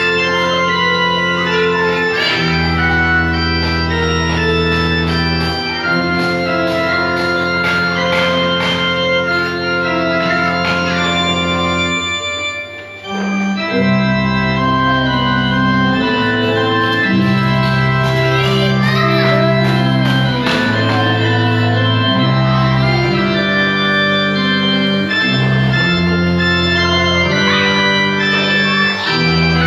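Yamaha electronic keyboard played four-handed: a simple melody over long held chords and a low bass line that changes every second or two. There is a brief break about 13 seconds in.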